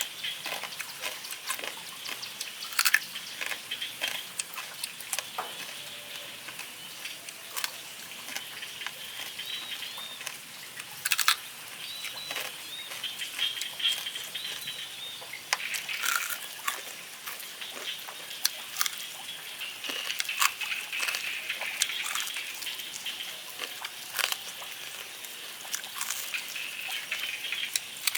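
Crispy deep-fried pork belly chicharrones being bitten and chewed, with irregular sharp crunches and crackles over steady mouth chewing.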